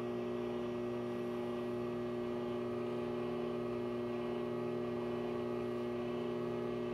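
Steady electric hum from the motors of antique rotating mannequin display pedestals as they turn: an even, low drone that does not change.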